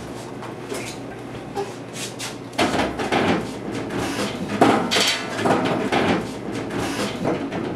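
Scuffling: a string of knocks and thumps with rustling of clothing, getting busier and louder about two and a half seconds in.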